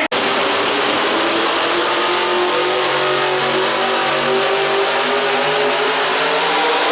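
Loud engine of a competition pulling vehicle running hard during a pull, steady, its pitch sagging slowly and then climbing a little.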